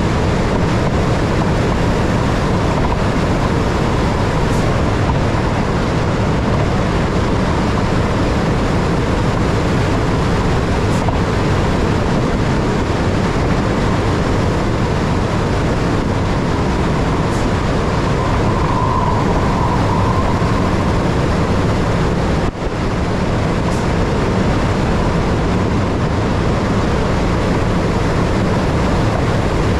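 ÖBB Railjet passenger train running at high speed: a steady, loud rumble and rush of wheels on rail and passing air, with no change in pace.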